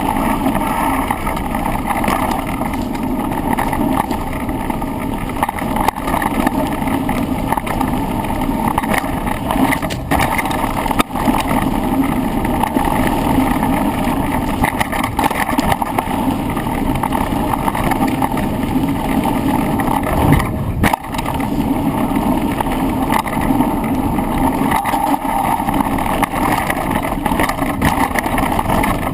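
A bike running fast down a rough trail, heard through a handlebar-mounted camera: a constant rattle and rumble from tyres and frame over the ground, with sharper knocks about 11 and 21 seconds in.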